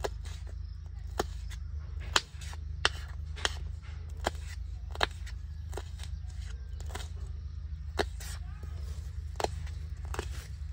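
Kitchen knife slicing green chillies on a wooden cutting board: the blade knocks on the board in sharp, uneven taps, roughly one a second. A steady low hum runs underneath.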